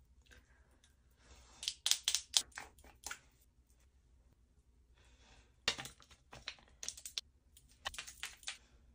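Quick light clicks and taps from hands handling cosmetics at close range, such as plastic tubes, caps and rings, in two short runs: one about a second and a half in, the other from about halfway to near the end.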